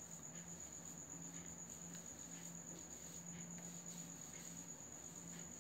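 Quiet background with a steady high-pitched tone and a low hum, and faint, soft, irregular brushing sounds as a cotton pad is wiped over the skin to remove makeup.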